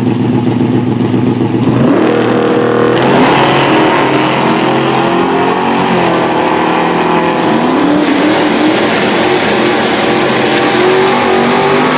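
1988 Chevrolet Monte Carlo drag car running steadily, then launching hard about three seconds in and accelerating at full throttle. The engine pitch climbs, drops back briefly twice as it shifts gear, and climbs again.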